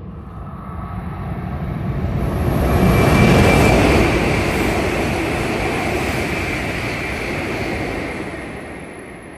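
Hokuriku Shinkansen train passing through the station at full speed without stopping: a rushing noise that builds quickly, is loudest about three seconds in as the front end goes by, holds while the carriages stream past, and fades near the end.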